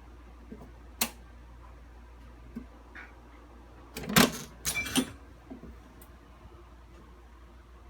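A sharp click about a second in, then a brief burst of clattering knocks about four seconds in, over the steady low hum of an air conditioner.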